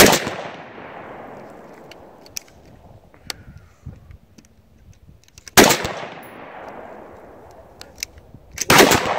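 Three loud rifle shots from a scoped AR-style rifle, each followed by a long echoing tail: one right at the start, one about five and a half seconds in, and one near the end. It is a group fired to check the zero after scope adjustments.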